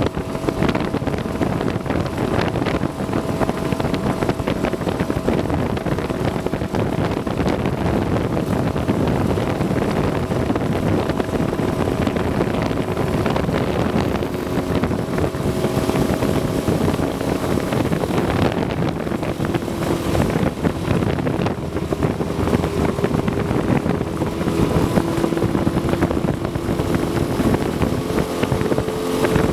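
Motor of a small flat-bottomed aluminium boat running steadily under way, with wind on the microphone. Its note shifts a little about two-thirds of the way through.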